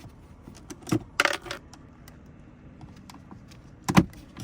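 A few sharp metallic clinks and clicks of screws and a screwdriver being handled while a glove box's screws are taken out; the loudest comes about four seconds in.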